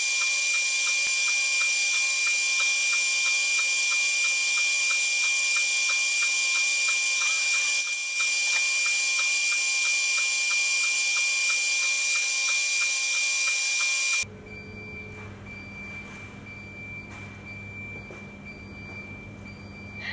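CNC router spindle whining steadily at one high pitch, with the hiss of the bit carving relief into MDF. About fourteen seconds in the sound cuts off abruptly to a much quieter low hum.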